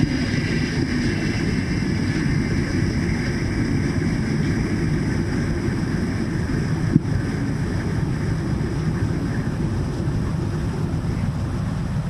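Servo drive machine and the coupled DC shunt-wound generator on a test bench running down as the speed is turned down toward standstill. A steady low machine noise with a fainter whine that fades as it slows, and a single click about seven seconds in.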